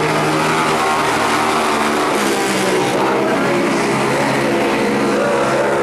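Several vintage racing motorcycles running hard around a dirt track, their overlapping engine notes continuous and loud.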